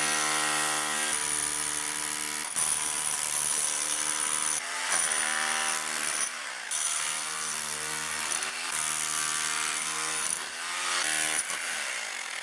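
Electric impact drill with a chisel bit hammering and chipping away old concrete. It runs in several stretches, stopping briefly and starting again.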